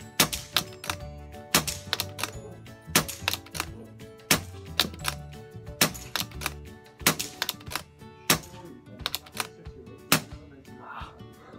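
Background music with held chords and sharp percussive hits.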